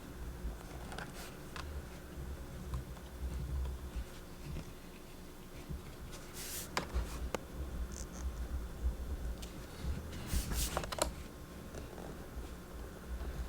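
Small screwdriver and tiny laptop case screws clicking and scraping as the bottom-case screws of a 2012 MacBook Pro are backed out and set down, with a few sharper clicks about six to seven seconds in and again near eleven seconds.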